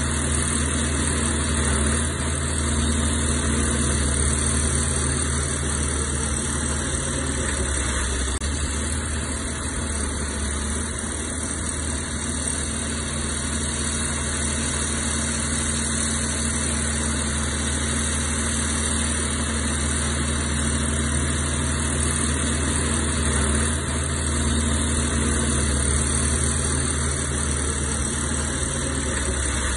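Heavy earthmoving machine's diesel engine running steadily at an even pitch.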